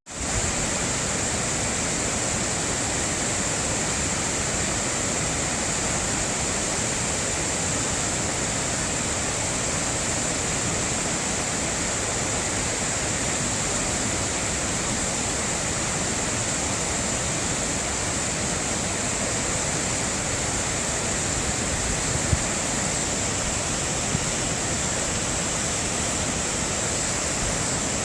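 A waterfall's water pouring and splashing in a steady, unbroken rush.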